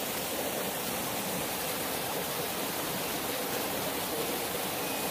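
Steady rushing of water from a small waterfall and stream.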